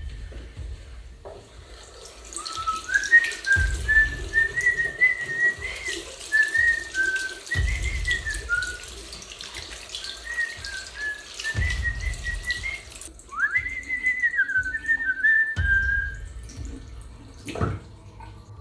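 Someone whistling a wavering tune over a running sink tap. The tap stops about two-thirds of the way in, and the whistling goes on a little longer before ending. Low thuds come about every four seconds.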